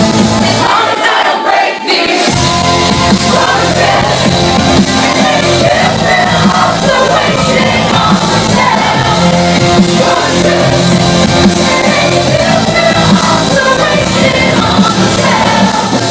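Live electronic dance track played loud through a club PA, with a woman singing the lead vocal into a microphone over it. The bass cuts out about a second in and drops back in about two seconds in.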